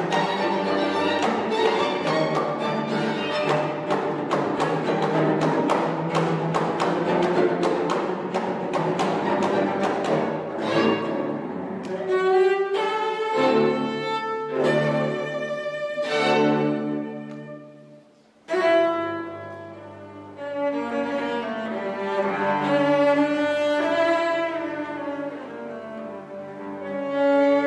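Solo cello with string orchestra playing classical music. Quick repeated strokes fill the first dozen seconds, then held chords come in separate phrases, fading almost to silence about eighteen seconds in before the strings return with sustained chords.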